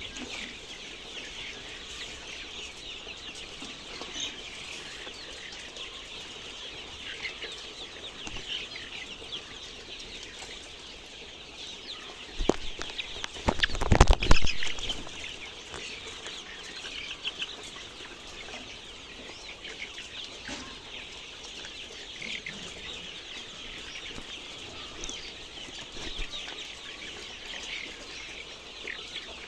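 A flock of chickens calling continuously, a dense chatter of many short high cheeps and clucks. About halfway through, a loud clattering burst lasts about two seconds.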